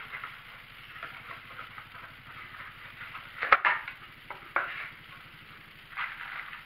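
Hands handling parts and a cardboard box at a tool and cutter grinder: scattered light knocks and rustles, with one sharp knock about halfway through, over a faint steady hum.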